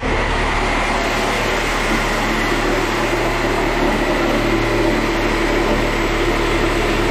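Power saw with a wood blade running steadily as it cuts down through the wooden floor decking.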